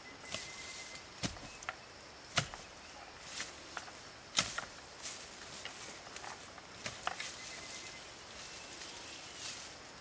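Irregular sharp knocks and scuffs of manual work with soil and manure, about a dozen spread unevenly, the loudest about four and a half seconds in.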